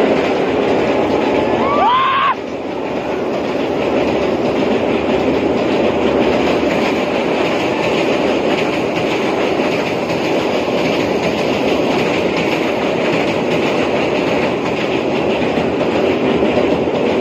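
Passenger train crossing a steel girder rail bridge overhead, a steady loud noise of wheels and carriages on the bridge. A short rising tone sounds once, about two seconds in.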